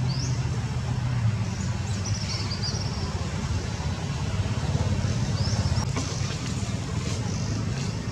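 Steady low engine rumble, like a vehicle running nearby. A few short, high rising chirps sound over it about 2 and 5.5 seconds in.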